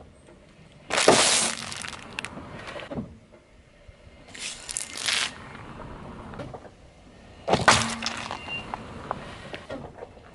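A car tyre rolling over packaged snacks on asphalt and crushing them: a crunching, crackling crisp packet about a second in, then two more crushing crunches, one around four and a half seconds and one around seven and a half.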